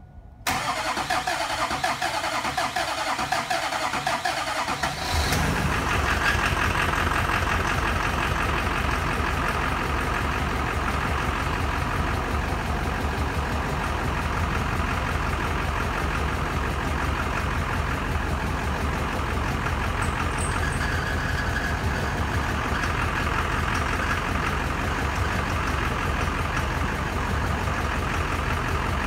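Duramax 6.6 L V8 turbo-diesel (LB7) of a 2001 GMC Sierra 2500HD, cranked by the starter for about four and a half seconds, then catching and settling into a steady idle. This is its start-up with newly installed injectors.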